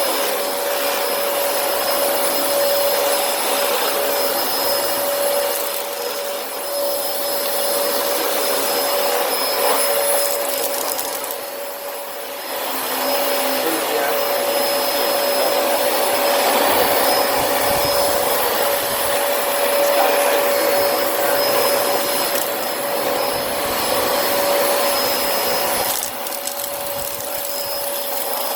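Dyson DC25 upright ball vacuum running, its motor giving a steady high whine over the rush of airflow as it picks up sand and debris. The level dips briefly a few times.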